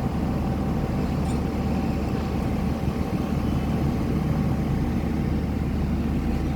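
Heavy diesel earthmoving machinery, excavators working at a truck loading point, running steadily with a low rumble and a faint steady whine.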